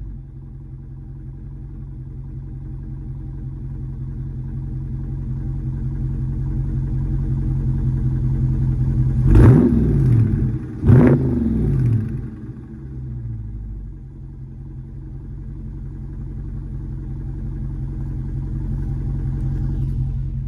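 Dodge Charger Scat Pack's 392 HEMI V8 idling through its exhaust, blipped twice in quick succession a little past the middle: two short revs that rise and drop back to idle about a second and a half apart.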